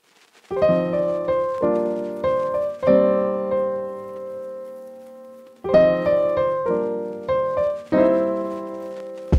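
Background music: slow piano chords, each struck and left to ring and fade, starting about half a second in, with a long fading chord in the middle before the next run of chords.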